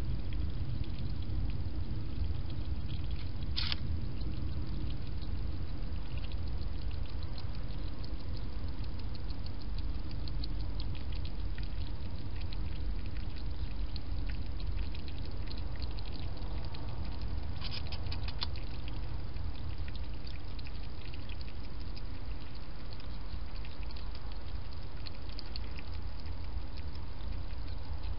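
A wild European hedgehog feeding at a dish: a run of small, irregular mouth clicks and smacks, with a sharper click about four seconds in and a short cluster of clicks a little past halfway, over a steady low background rumble.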